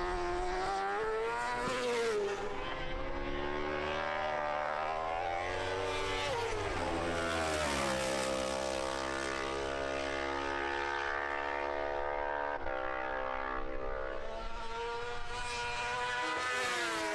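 Racing motorcycle engine at high revs, its pitch climbing and dropping again and again with throttle and gear changes, steadier for a few seconds in the middle.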